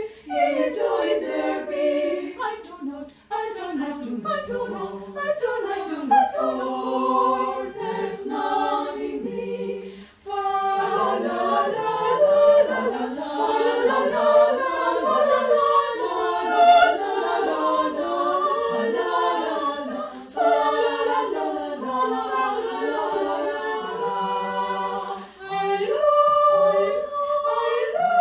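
Mixed choir of men's and women's voices singing a cappella in several parts, with brief breaks between phrases.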